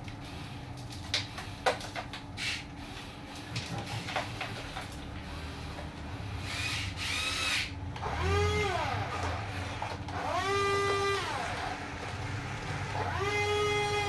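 Small electric motors of a Huina RC wheel loader whining three times, each whine rising and then falling in pitch, as the loader works its bucket and drives back. Before them, scattered light clicks and knocks.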